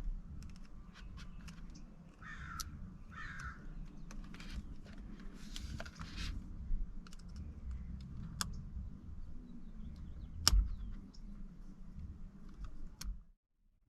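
Sharp plastic clicks and handling noise as the airbag's wiring connectors are worked loose and unplugged from the steering wheel, with three louder clicks in the second half. Two short caw-like squawks come about two and three seconds in.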